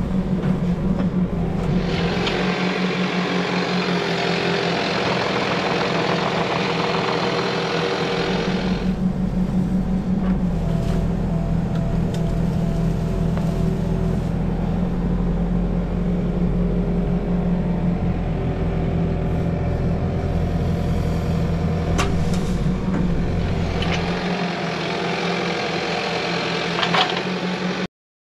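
Diesel engine of a heavy machine running steadily, with stretches of louder, noisier working sound from about 2 to 9 seconds in and again near the end, and a sharp click about two-thirds of the way through.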